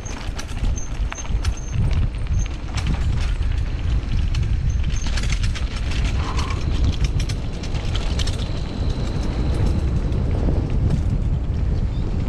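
Mountain bike clattering over rough trail, with many sharp rattles and knocks from the frame and chain, under a heavy wind rumble on the microphone.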